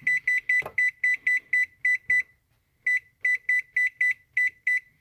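Oven control panel beeping with each key press as the timer is set to 30 minutes: short, high, identical beeps about four a second, a pause of under a second near the middle, then another run.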